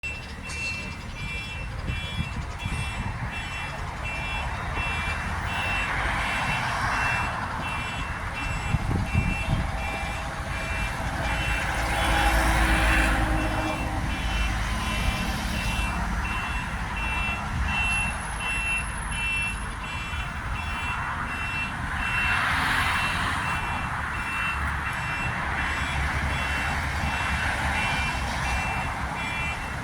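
A vehicle's electronic warning beeper, car alarm or reversing alarm, sounding a steady run of short high beeps, over the hum of road traffic with engines rumbling and vehicles passing now and then.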